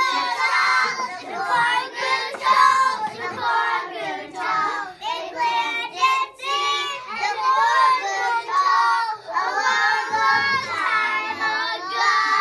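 A group of three- and four-year-old children singing a song together.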